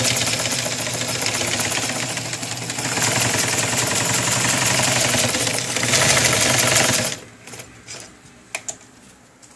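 Restored Elgin Zig Zag Z-22 cast-iron sewing machine running fast with a quick, even rattle, easing slightly and then speeding up again, and stopping about seven seconds in. A few light clicks follow.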